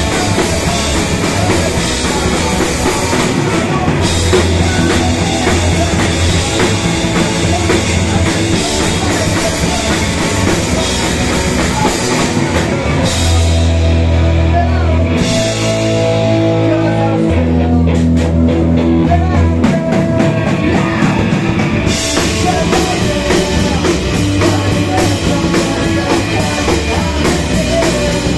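Punk rock band playing live: distorted electric guitar, bass guitar and drum kit. A little under halfway through the cymbals and guitar drop away for a stretch of bass notes and drum hits, and the full band comes back in about three-quarters of the way through.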